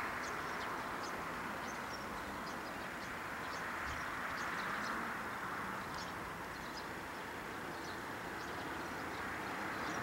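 Small birds chirping here and there over a steady rushing background noise that swells a little midway and again near the end.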